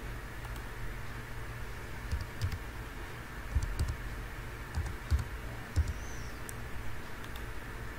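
Computer keyboard keys tapped in an irregular run of short clicks, starting about two seconds in, over a steady low hum and hiss.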